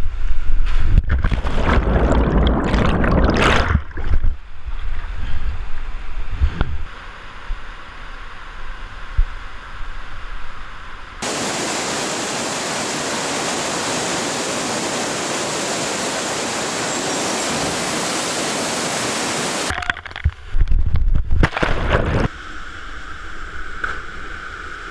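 Canyon waterfall and plunge pool: loud splashing and churning water for the first few seconds as a canyoner jumps into the pool, then a steady, even rush of falling water for several seconds, broken near the end by another brief burst of loud splashing before the rush settles lower.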